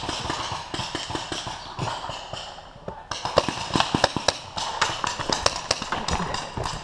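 Running footsteps crunching through dry leaf litter, with many irregular sharp clicks and knocks, thickest in the second half.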